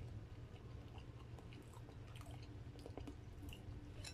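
A person chewing a mouthful of chicken and noodles close to the microphone, with scattered small wet mouth clicks.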